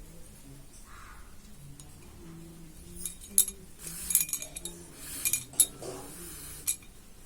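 Small sharp clicks and light clinks with brief rustling from handling a needle, thread and cotton fabric during hand sewing. They come in a cluster in the second half.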